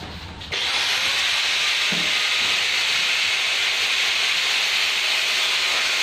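Steady, even hissing noise that cuts in abruptly about half a second in and holds level without rhythm.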